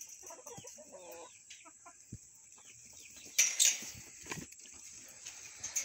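Hens clucking softly, a run of short calls in the first second or so. About three and a half seconds in comes a brief, louder rustle.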